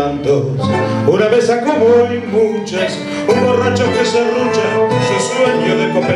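Tango orchestra (orquesta típica) playing, with violins and guitar among the instruments.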